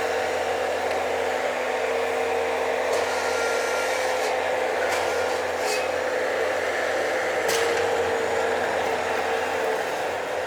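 Bobcat skid-steer loader's engine running steadily, with a few short clanks in the middle.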